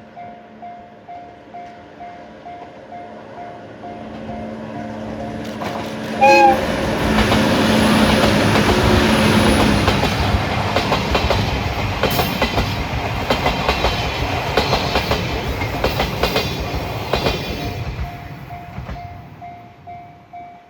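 Japanese level-crossing alarm ringing at about two dings a second. About six seconds in, a GV-E197 diesel-electric train gives a short horn blast and passes hauling old-type passenger coaches, its wheels clacking over the rail joints. The passing noise drowns the alarm for about twelve seconds, and the alarm is heard again as the train fades.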